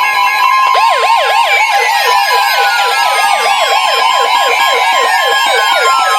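NOAA weather radios sounding their warning alarms together for a new alert, a severe thunderstorm warning: a steady alert tone near 1 kHz, joined about a second in by a fast yelping siren-style alarm repeating about four to five times a second, with a couple of slow falling tones above it.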